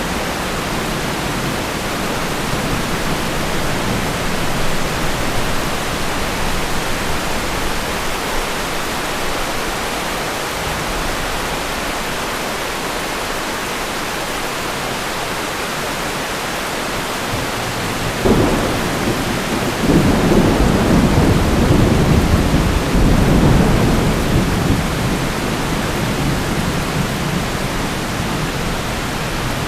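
Heavy rain hissing steadily, with a sharp thunderclap about two thirds of the way in, followed by several seconds of loud rolling thunder that slowly dies back into the rain.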